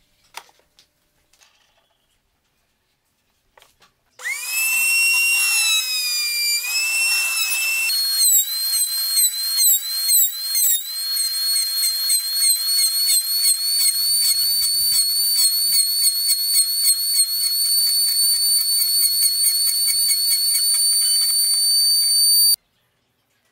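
Electric wood router spinning a straight bit with a high-pitched whine that starts about four seconds in, its pitch dipping under load as the bit cuts into the end of a wooden dowel to form a round tenon. A fast, even chatter from the cut runs over the whine, and the sound cuts off suddenly near the end.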